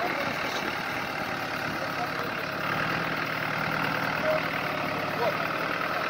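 Engine of an off-road competition 4x4 running steadily while it works up a rocky climb, heard from a distance, getting a little louder about halfway through.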